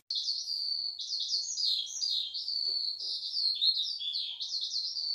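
Songbird singing: a continuous run of high, fast chirps and trills.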